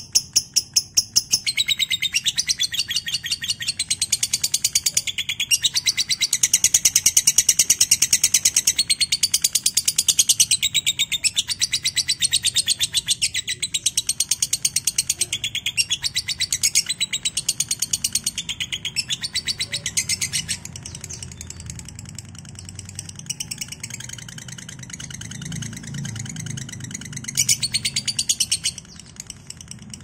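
Lovebird singing its ngekek, the long trill prized by lovebird keepers: a fast, unbroken run of sharp chattering chirps, many a second, lasting about twenty seconds. It then drops away to fainter chirping, with a second short loud run near the end.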